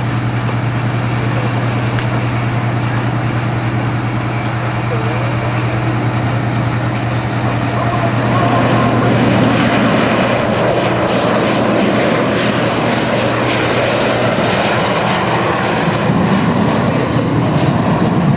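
Jet noise from a formation of four Aero L-39 Albatros jet trainers at take-off power as they run down the runway and lift off, growing louder about eight seconds in as they climb past. A steady low hum sits underneath.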